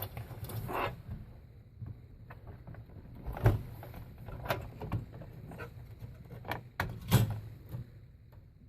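Plastic clicks and knocks with cable rustling as a 20-pin ATX power connector is rocked and pushed into a motherboard socket. The two sharpest knocks come about three and a half seconds and seven seconds in.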